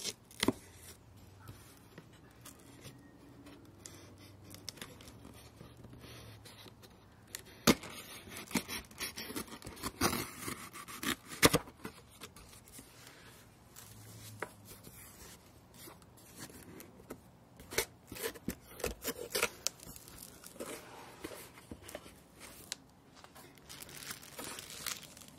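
Packing tape peeled and torn off a cardboard shipping box, with scraping of the cardboard and a couple of sharp clicks as the box is worked open. Near the end, the plastic air-cushion packing inside crinkles under a hand.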